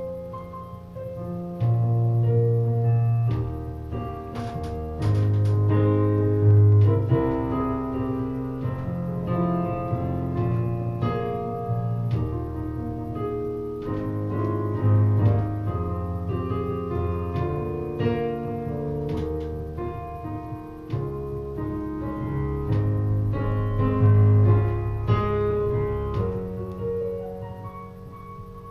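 Piano playing a steady run of chords over deep held bass notes, the harmony changing every second or two.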